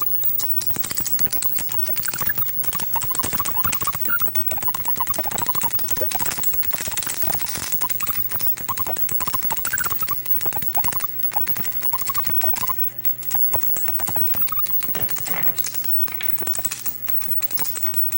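High-voltage discharge crackling with short, wavering whistles that slide up and down in pitch, over a steady low hum. The whistle comes from ion wind escaping a tube.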